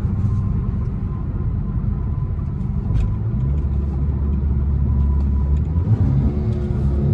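Dodge Charger SRT's V8 exhaust droning steadily at highway speed, heard from inside the cabin over road noise. A deeper low rumble swells from about three seconds in and eases off near the end.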